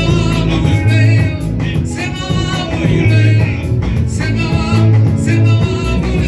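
Live worship music: voices singing a hymn over a band with a strong, pulsing bass line.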